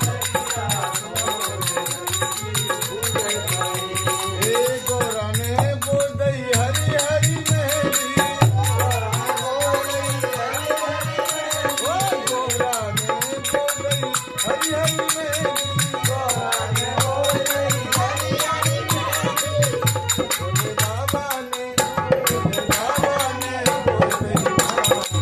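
A devotional bhajan: a voice singing a gliding melody over steady, rhythmic hand-percussion accompaniment.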